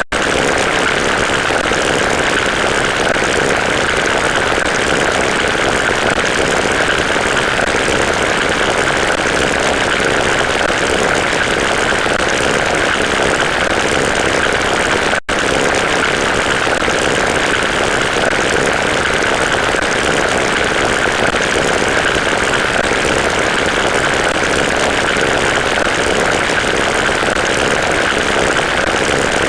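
Steady, loud mechanical drone with no rhythm, breaking off for an instant about halfway through and then carrying on unchanged.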